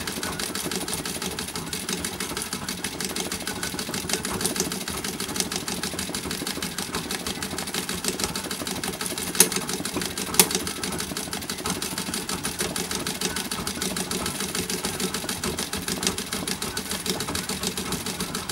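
Vintage straight-stitch treadle sewing machine running steadily, its needle mechanism ticking rapidly as it stitches free-motion embroidery through hooped fabric. Two sharper clicks about a second apart near the middle.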